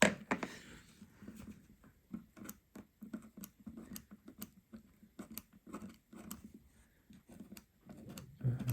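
Small metal screwdriver tip scraping and clicking irregularly against an iPhone 12's frame as old screen adhesive tape is scraped off, with a louder scrape right at the start.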